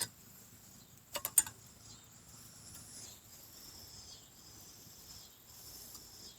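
A quick run of three sharp clicks about a second in, from pack buckles and clips being undone, over a steady high chirring of insects.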